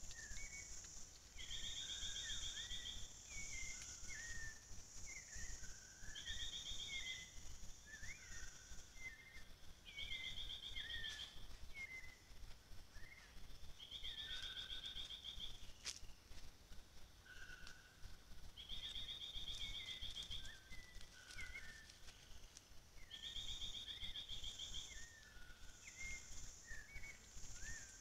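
Tropical forest ambience: a high pulsed insect trill about a second long that comes back every four seconds or so over a steady high insect hiss, with many short bird chirps and whistles scattered throughout.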